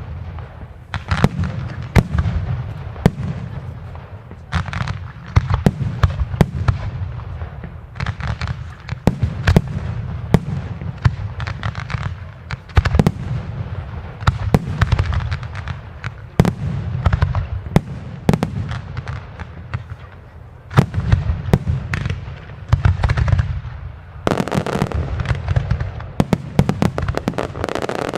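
Aerial fireworks display: a dense run of shell bursts and sharp salute bangs, one after another, over a low rumble. The barrage thickens about 24 seconds in.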